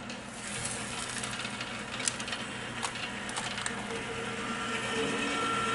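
Countertop rotisserie oven running with a steady hum while fat from the chicken crackles on the heating element, with a few sharp pops about two seconds and three seconds in.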